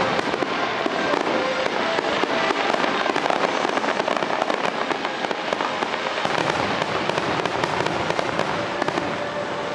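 Aerial fireworks display: shells launching and bursting overhead, with many sharp pops and crackles following close on one another.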